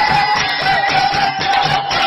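Live bhajan (Nepali devotional folk music): a quick, steady drum beat with jingling percussion under one held, slightly wavering melody line.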